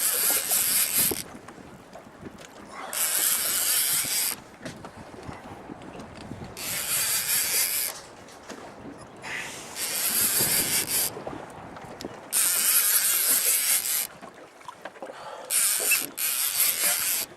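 Fishing reel cranked hard in six bursts of a second or so, about every three seconds, its gears whirring and clicking: the pump-and-reel rhythm of winding a heavy fish up from the bottom.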